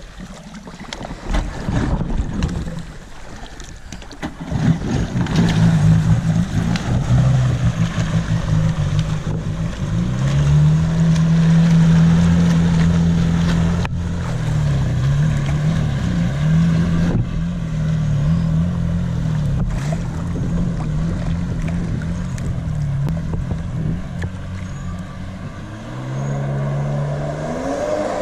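A Sea-Doo GTI jet ski's two-stroke engine revs up and pulls away across the water. Its pitch climbs about ten seconds in, then wavers up and down with the throttle and fades as the craft moves off, rising again near the end.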